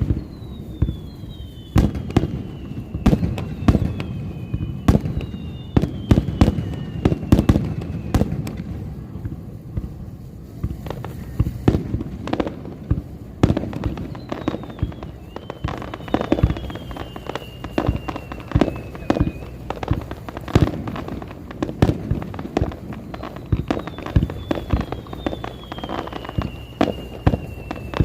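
Fireworks finale: a dense, unbroken barrage of shell bursts and crackling bangs, with long whistles falling in pitch every few seconds.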